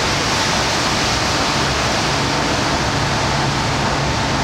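Small passenger boat under way: a steady rush of water and wind over the low hum of its engine.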